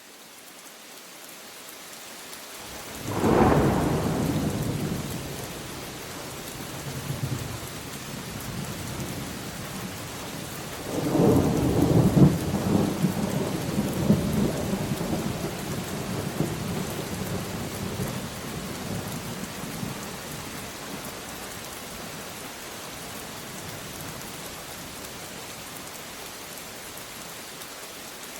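Steady rain with two rolls of thunder: the first cracks about three seconds in, and a louder one breaks about eleven seconds in and rumbles on for several seconds before fading under the rain.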